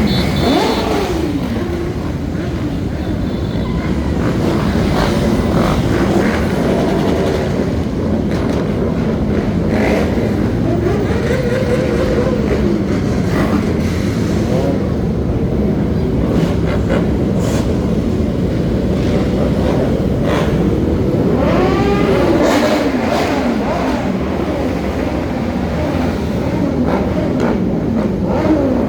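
Motorcycle engines running and revving as the bikes ride around, their pitch rising and falling again and again.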